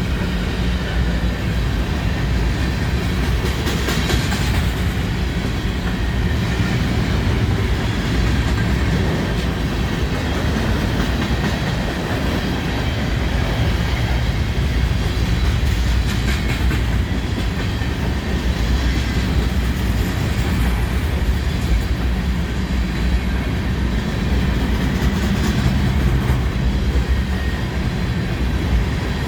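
A BNSF freight train's cars rolling past at close range: a loud, steady noise of steel wheels on the rails, with no horn sounding.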